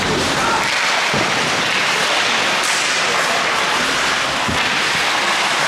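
Ice hockey play on the rink: skates scraping across the ice in a steady hiss, with two sharp knocks of stick or puck, about a second in and again near the end.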